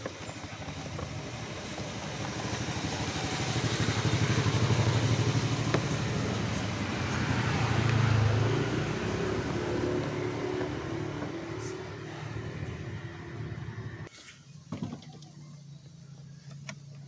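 Motorcycle engine running, growing louder over the first few seconds and then easing off, before dropping sharply to a much quieter level about 14 seconds in.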